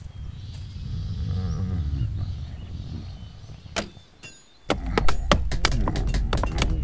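A low, rumbling creature-like grumble with slowly wavering pitch, then a short lull. After that comes a louder low rumble with a quick run of sharp knocks, axes chopping wood.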